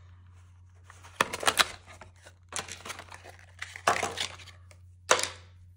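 Plastic blister packaging crinkling and tearing as it is pulled open, in four short bursts.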